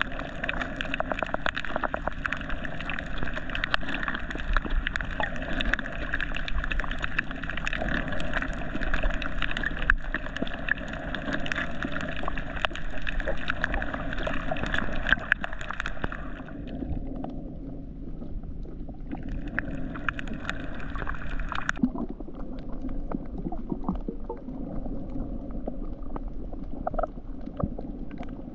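Underwater reef ambience picked up by a camera: a steady hiss with a dense crackle of clicks. The higher part of the sound drops away about sixteen seconds in, comes back for a few seconds around twenty seconds, then drops away again.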